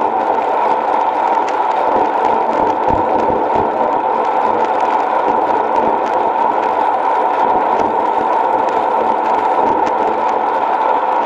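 Steady rushing wind and road noise from a road bike riding at speed, picked up by a bike-mounted action camera, with a few brief low bumps.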